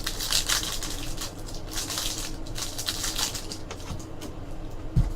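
Trading card packs and cards being handled: a quick run of crinkling and rustling from wrappers and card stock for the first few seconds, then quieter shuffling, with a single dull thump near the end.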